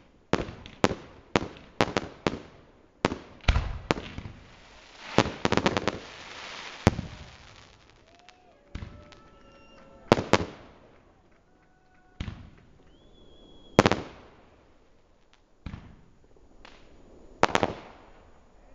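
Fireworks display: aerial shells bursting in a rapid run of sharp bangs, with a dense crackling patch about five to six seconds in, then single bangs spaced a second or two apart.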